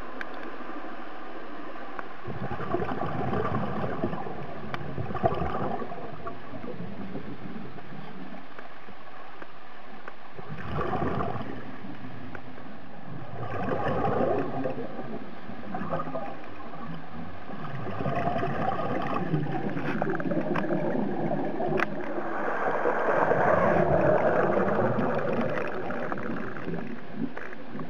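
Scuba diver's exhaled bubbles gurgling from the regulator in surges every few seconds, heard underwater over a steady hiss.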